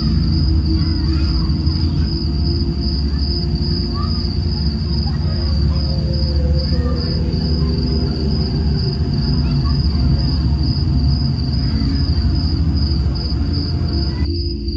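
Crickets chirping in a fast, even trill over a low, steady drone.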